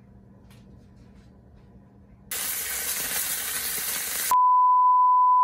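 Salmon pieces sizzling loudly in hot oil in a frying pan for about two seconds, cut off abruptly by a steady high-pitched beep that lasts just over a second.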